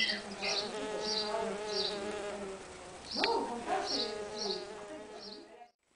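Mason bee buzzing at its nest tube entrance, the buzz shifting and wavering in pitch about three seconds in. Short high chirps of a bird repeat about twice a second over it. The sound cuts off abruptly near the end.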